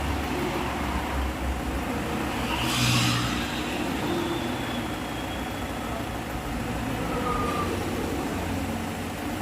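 A vehicle engine running steadily at idle, with a brief hiss about three seconds in.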